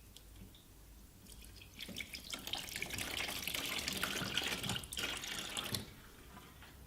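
Water running from a tap into a sink, coming on about a second and a half in and stopping a second before the end.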